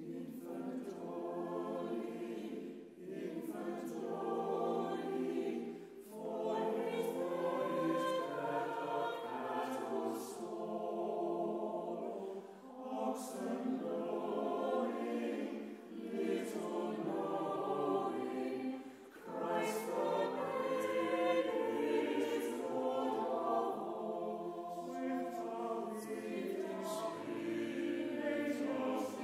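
Choir singing a carol in sustained phrases, with short breaks between them.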